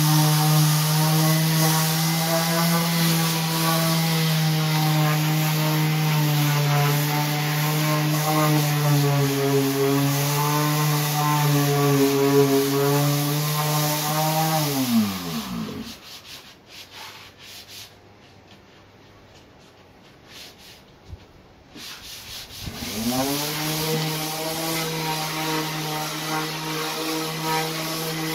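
Electric hand sander running against a wooden speaker cabinet, smoothing down patches of filler. About halfway through its motor winds down and stops, then spins back up several seconds later and runs steadily again.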